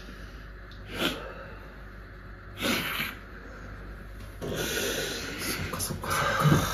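People sniffling and crying: sharp sniffs through the nose about a second in and again just under three seconds in, then a longer stretch of heavy, snuffly breathing with a short sob near the end.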